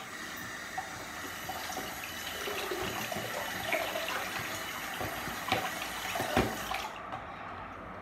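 Bathroom sink mixer tap running in a steady stream onto a baby doll being rinsed in the basin, with a couple of knocks against the basin; the water stops about seven seconds in.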